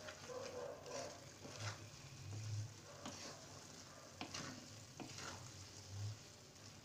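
A spatula stirring and scraping carrot halwa in a kadhai as it fries in desi ghee, with a faint sizzle. A few light clicks as the spatula catches the pan.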